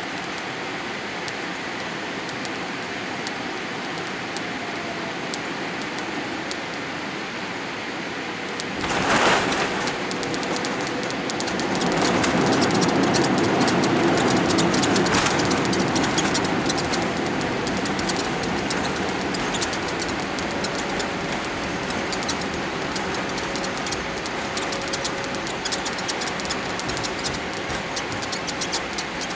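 Cabin noise of a Boeing 787-8 landing, with its Rolls-Royce engines. Steady engine and airflow noise on the final approach gives way to a sudden jolt of touchdown about nine seconds in. The noise then swells for several seconds as the jet slows on the runway, and settles into a rolling rumble with rattling from the wheels.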